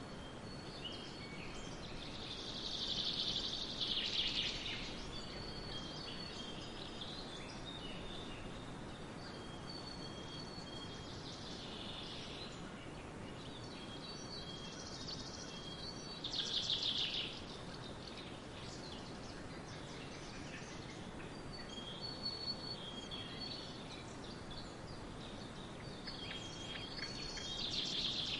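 Steady wind hiss over a barley field. Swallows twitter in bursts of rapid high chirps about five times, louder than the wind, with shorter thin high chirps between them.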